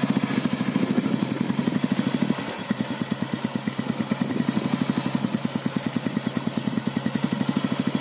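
1996 Royal Enfield Bullet's single-cylinder four-stroke engine running with a quick, even beat as the bike is ridden slowly, dipping briefly about two and a half seconds in.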